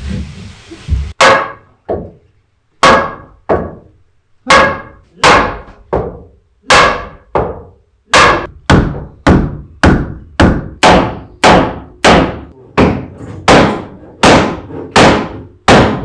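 Hammer blows on wooden stair-railing joinery, each knock ringing briefly. They start a second in, spaced out and in pairs, then settle into a steady run of two to three blows a second.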